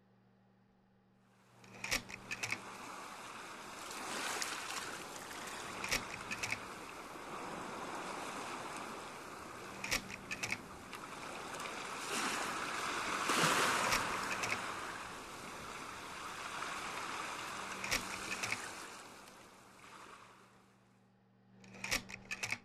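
Rushing noise like surf, swelling and ebbing in slow waves, with sharp clicks about every four seconds.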